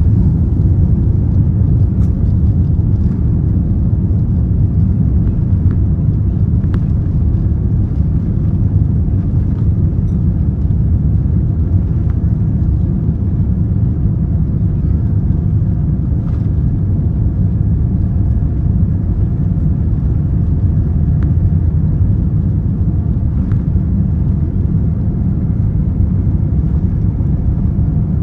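Boeing 787-9 cabin noise at takeoff power: the steady, loud low rumble of its GE GEnx-1B engines and rushing air, heard from inside the cabin, with a few faint clicks and rattles.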